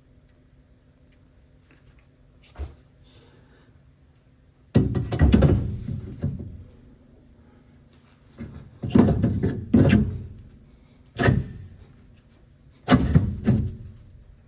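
Heavy metal clunks and scrapes of a Land Rover Series III differential carrier knocking against the axle housing and its studs as it is fitted into place. The clunks come in several bursts, the loudest about a third of the way in.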